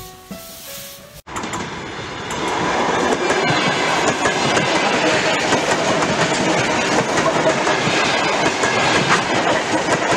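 A few tones of intro music, then a sudden cut about a second in to an ET2 DC electric multiple unit passing close by. Its wheels on the rails make a loud, steady rush with repeated clicks over the rail joints.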